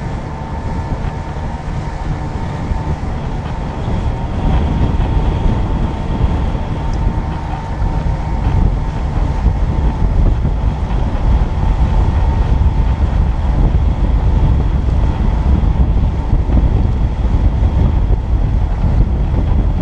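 Boat motor running steadily, with wind buffeting the microphone; it grows louder about four seconds in.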